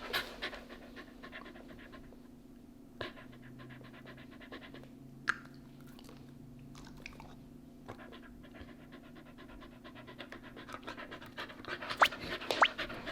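Shiba Inu panting rapidly, faint at first and louder near the end, with two sharp clicks along the way and a steady low hum underneath.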